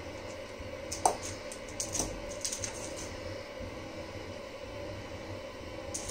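Light clicks and taps of kittens' paws and claws on a parquet wood floor as they pounce and scamper after a dangling feather toy, bunched into a quick flurry about a second in, over a steady faint hum.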